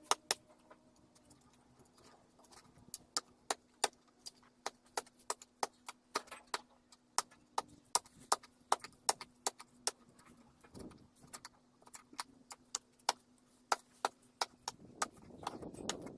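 A long run of sharp clicks or taps, about two or three a second, pausing briefly near the middle, over a faint steady hum.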